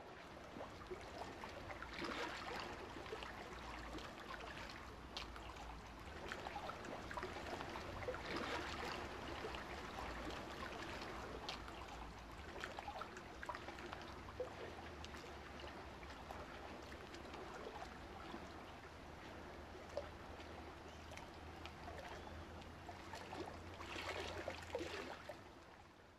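Faint lake water lapping and trickling, with a few small splashes and swells over a low steady rumble.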